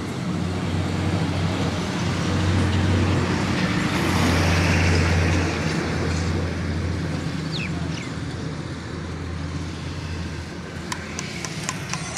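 A motor vehicle's engine hums steadily, with traffic noise swelling louder around the middle and then fading.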